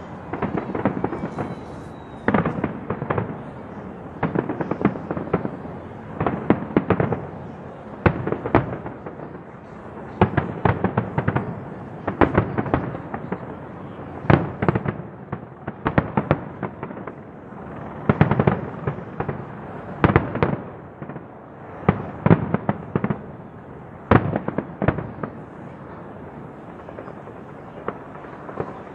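A large fireworks display going off a few hundred metres away: a continuous run of bangs and crackling reports, coming in rapid clusters every second or two.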